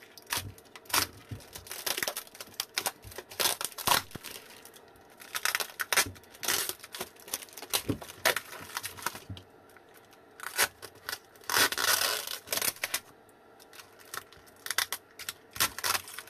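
Tape and plastic wrapping being peeled and ripped off the cell pack of a 36 V lithium e-bike battery: irregular crinkling and tearing, with one longer rip about twelve seconds in.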